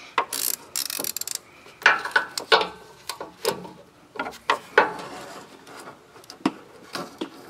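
Wrench and metal hose-end fitting clinking and scraping as a braided oil hose end is tightened onto its fitting: irregular clicks and taps, with a brief rustling scrape about half a second in.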